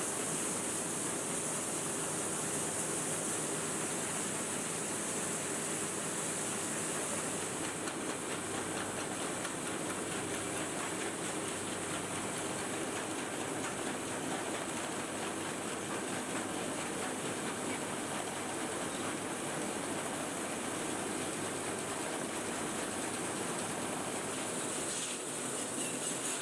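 Match-factory machinery handling wooden match splints, running with a steady, dense mechanical clatter and hiss.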